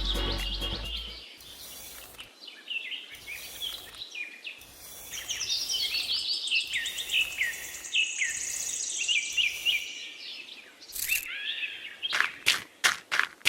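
Small birds chirping, many short falling calls with a high trill in the middle. Near the end comes a quick run of sharp knocks, about three a second.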